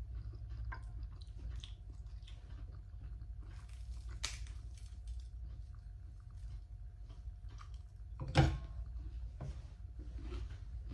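A person chewing and eating with the fingers: small wet mouth clicks and crackles of food being torn and chewed over a steady low hum, with a sharp crack about four seconds in and a louder thump about eight and a half seconds in.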